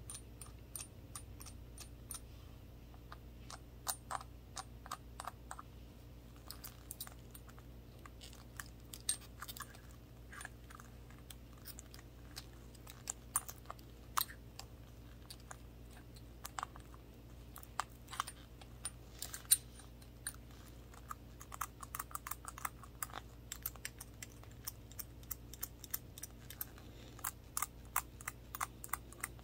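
Light, irregular tapping and clicking on a small glass shot glass with a handle, made with toothpick-tipped gloved fingers: many quick taps, sometimes in little clusters, over a faint steady hum.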